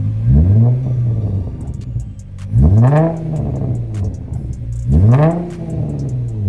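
Infiniti G35's 3.5-litre V6, running through a 3-inch Circuit Werks exhaust with test pipes in place of the catalytic converters, revved three times from idle, each blip rising quickly and falling back. The engine is still cold, so the revs are kept to about 3,000 rpm.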